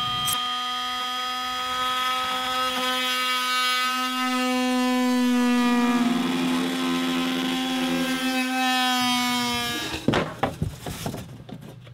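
Handheld cordless power saw cutting through a plywood board: a steady motor whine that drops a little in pitch partway through as the blade loads up, then stops about ten seconds in. A few knocks follow as the board is handled.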